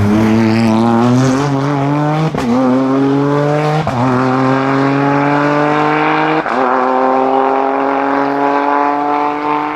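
Rally car engine accelerating hard through the gears, its pitch climbing steadily with brief dips at three upshifts, about two, four and six and a half seconds in.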